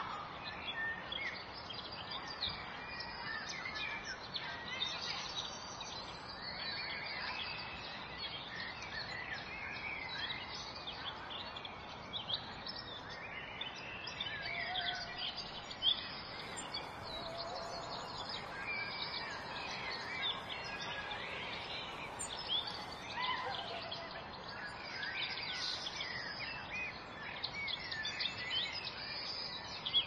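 A chorus of small birds chirping and twittering, many short calls and trills overlapping throughout over a steady background hiss.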